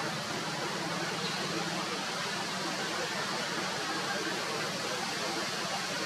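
Steady, even background hiss with no distinct sounds standing out.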